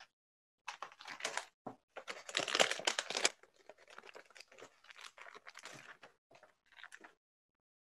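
Clear plastic packaging crinkling and rustling in uneven bursts as an action figure is unwrapped by hand, loudest around two to three seconds in.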